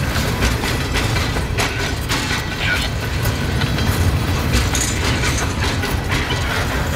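Covered hopper cars of a freight train rolling past close by: a steady low rumble of steel wheels on rail, with frequent clanking knocks and a few brief high squeals.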